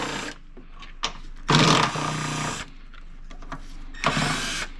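A small power tool, likely a cordless ratchet or driver, runs in two short bursts of about a second each, spinning out the 10 mm bolts of an engine mount. The bursts come about a second and a half in and again near the end.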